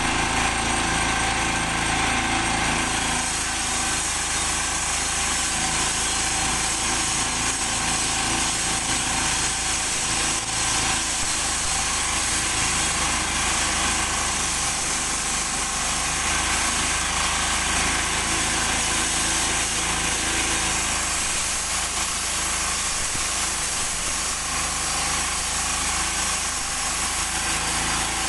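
Walk-behind concrete saw running steadily, its engine driving a diamond blade through wet concrete slab in one continuous cut.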